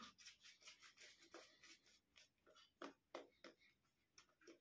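Faint, irregular soft scratching strokes of a shaving brush working lather, a few strokes a second, at near-silence level.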